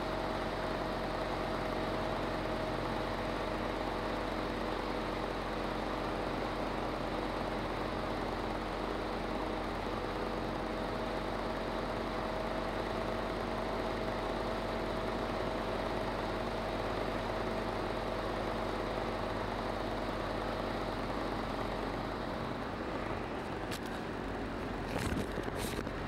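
Boat motor running steadily with a constant hum and rushing noise of the boat under way. Near the end, a few sharp clicks and knocks as the camera is handled.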